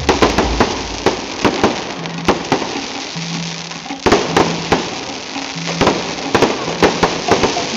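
Fireworks display: repeated sharp bangs and crackling bursts, with a dense flurry about four seconds in, over music with held notes.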